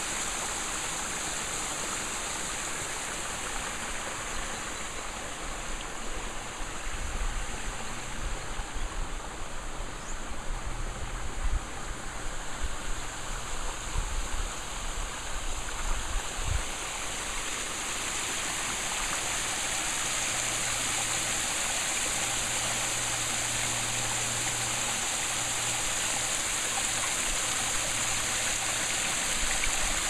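Pondless waterfall: water rushing and splashing steadily over rocks, a constant hiss that grows a little louder in the second half. Irregular low thumps and rumble come through in the middle stretch.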